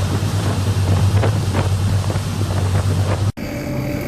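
Fishing boat's engine running steadily, with wind buffeting the microphone. About three seconds in the sound cuts abruptly to a quieter, steadier hum.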